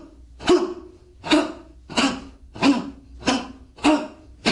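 Short, forceful grunting exhalations, one with each explosive fa jin strike of a Chen-style taijiquan demonstration. There are about seven in an even rhythm, roughly one every 0.6 seconds.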